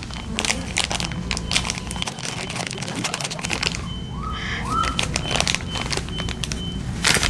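Thin plastic blind bag crinkling and crackling as it is torn open and handled by hand, with many small rapid crackles and one sharp louder crackle near the end.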